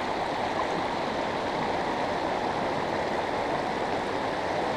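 River water rushing steadily over a shallow run, an even, unbroken flow.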